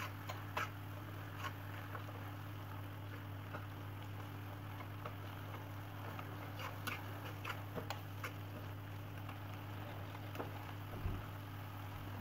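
Metal fork mashing tomatoes and onions in a non-stick frying pan, with irregular light clicks and taps where the fork strikes the pan. A steady low hum runs underneath.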